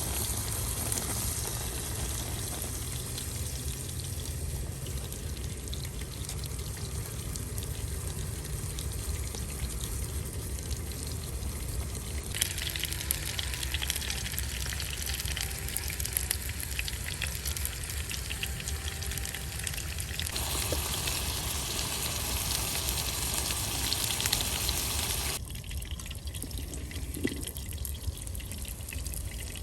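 Food sizzling in a pan over a camp stove, with wind rumbling on the microphone. The sizzle gets louder and brighter about twelve seconds in, and drops away near the end.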